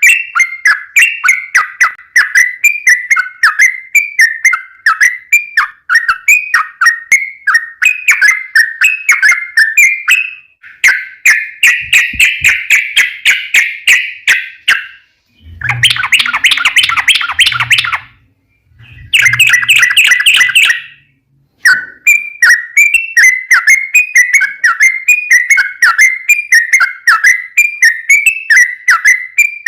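Yellow-vented bulbul (trucukan) singing a long run of quick, repeated chirping notes. About halfway through the song turns into a denser chatter, then two harsher, louder bursts broken by short silences, before the quick repeated notes return.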